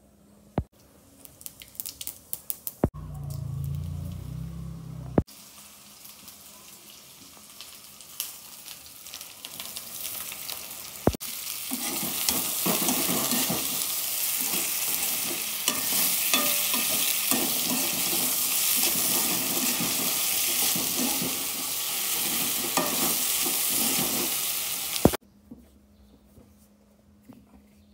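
Sliced potatoes sizzling in hot oil in a wok as they are stirred and turned with a metal spatula. The sizzle is loud and dense through most of the second half and cuts off suddenly a few seconds before the end, after scattered clicks and a brief low rumble early on.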